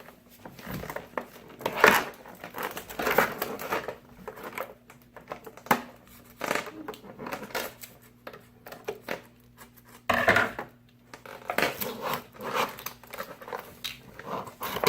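Scissors snipping through the plastic ties that hold a toy action figure in its box, with irregular clicks and rustling of the plastic packaging being handled.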